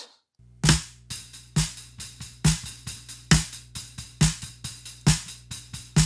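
Snare drum picked up by a Neumann KM84 aimed at the side of the shell, played back solo: a steady beat with a strong snare hit a little under once a second and fainter strokes between. Shell miking gives it a little less attack than a top-miked snare, with a full body.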